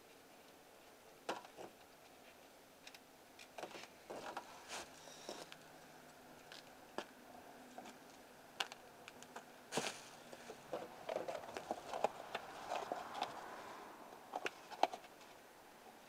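Hand tools and loose bolts being handled: irregular light metallic clicks and small clatters, busiest between about ten and thirteen seconds in.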